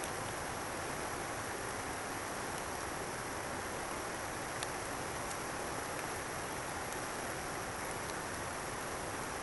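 Steady, even rushing of flowing river water, with a faint click about halfway through.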